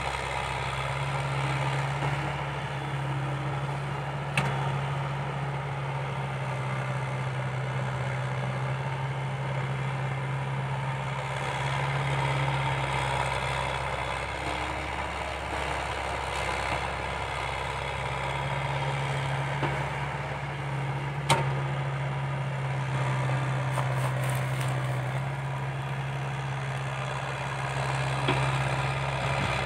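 Komatsu excavator's diesel engine running under working load as it digs and loads soil, a steady low drone that drops away for a few seconds about halfway through. Two sharp knocks stand out, one about four seconds in and one past the twenty-second mark.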